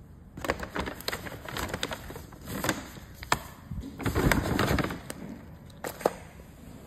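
Paper shopping bag and plastic packaging being handled: irregular rustling and crinkling with sharp knocks and clicks, a longer rustle about four seconds in.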